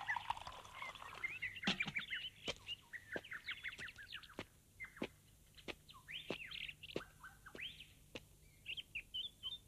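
Small birds chirping: a dense run of short, quick chirps and twitters, with scattered sharp clicks among them.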